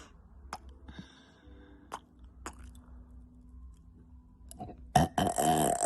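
Wet mouth clicks and lip smacks, then about five seconds in a woman lets out a loud, long belch.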